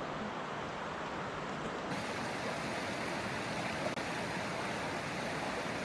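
Steady rush of flowing river water, with no other distinct sound. About two seconds in, it abruptly turns brighter and hissier.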